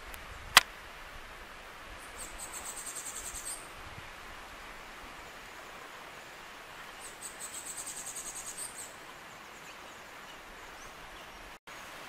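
Steady outdoor hiss, broken twice by a high-pitched rapid trill of an animal call, each lasting about a second and a half and a few seconds apart. A single sharp click sounds just after the start.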